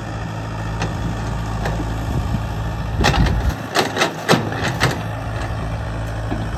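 Yanmar ViO70 mini excavator's diesel engine running steadily as it digs. A quick run of sharp knocks comes from the bucket working the soil about three to five seconds in.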